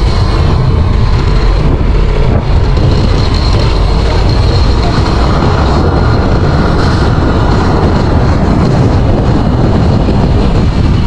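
Small motorcycle riding at a steady speed, heard from the rider's camera: a steady low rumble of wind on the microphone over the running engine.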